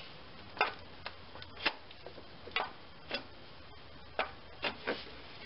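Irregular light clicks and knocks, about eight of them, as an unbolted starter motor is shifted and wiggled back out of its housing on a GM 2.4L quad four engine.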